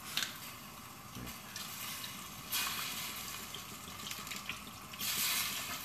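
Water poured from a plastic bottle into a steel pot of broth, splashing and gurgling in two louder gushes, the second near the end. A short click of the bottle cap twisting off comes right at the start.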